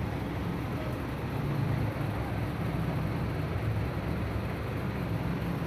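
Heavy truck engine idling steadily, a low, even running sound that does not change.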